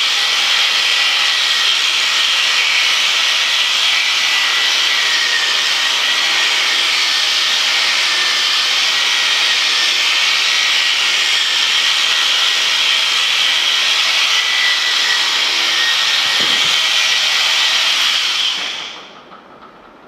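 Electric sheep-shearing clippers running steadily with a high whine as they cut through a ram's fleece, then switched off about two seconds before the end.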